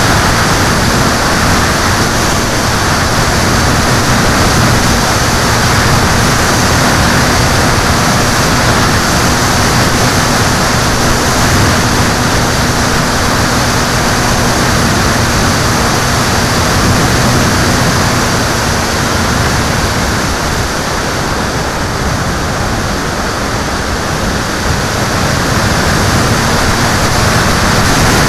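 Steady loud wind rush over the microphone of a camera mounted on a low-flying model aircraft, with a faint steady motor hum underneath. The rush eases a little about three quarters of the way through.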